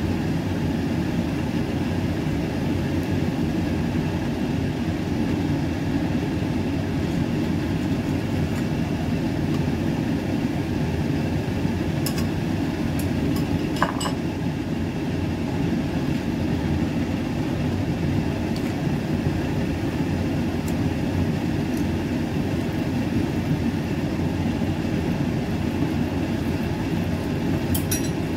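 A steady mechanical drone with several fixed tones, unchanging throughout. A few light clinks come about twelve and fourteen seconds in and again near the end.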